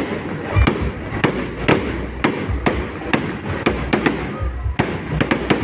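Fireworks display: a steady run of sharp bangs and pops, about two a second, with deep thuds from the bursting shells.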